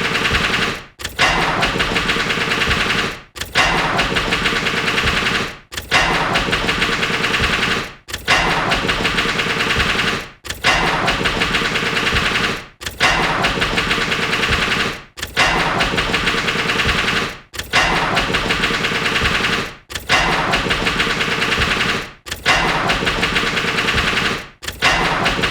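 Car engine cranking with a fast, even pulsing, catching briefly and then stalling, repeated over and over about every two and a half seconds, each attempt fading out into a short silence.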